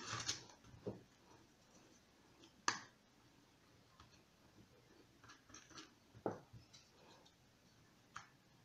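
Quiet handling noise: a few short sharp clicks and taps, the loudest nearly three seconds in, with faint rustling, as small cut pieces of cardboard tube are handled and pressed onto a papier-mâché figure.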